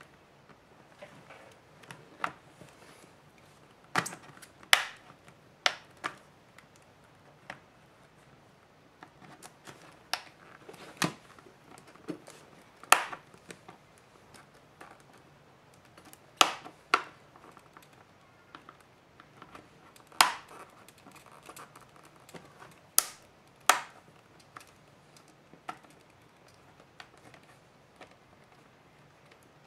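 Plastic back cover of a Samsung Galaxy Tab 3 being pried off with a pry tool: sharp plastic clicks at irregular intervals, some in quick pairs, as the retaining clips snap free.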